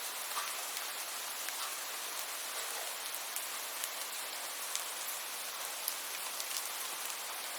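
Steady rain falling, a continuous hiss with scattered individual drops ticking sharply on a hard surface.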